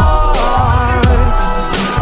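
A hip-hop/R&B-style song plays with a heavy bass beat and a sung vocal line.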